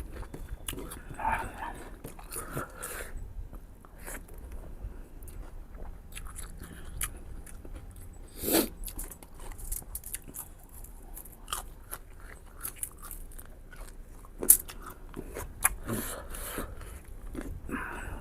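Close-up eating sounds of a person chewing and biting into mutton ribs: irregular wet mouth clicks and smacks, with a couple of louder sharp clicks, one about halfway through and one near the end.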